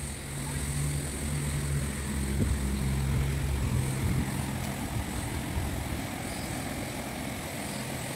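An engine's low, steady hum that fades out after about five seconds, over a steady noisy background.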